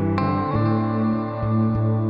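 Background music: slow, ambient-style music with long held notes and a plucked, guitar-like note struck just after the start.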